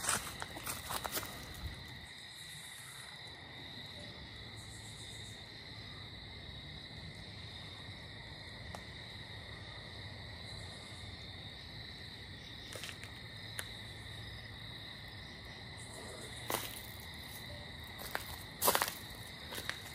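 Faint night-time insect chorus of crickets, a steady high trill, with occasional brief higher bursts. A few short knocks near the end.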